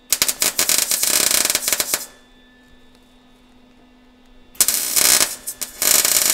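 Wire-feed welder arc crackling in short stop-and-spot tack runs: about two seconds of welding, a pause, then two more runs back to back near the end. A faint steady hum sits in the gaps.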